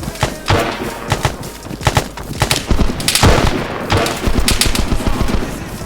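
A rapid, irregular string of sharp bangs and knocks, densest and loudest about three seconds in.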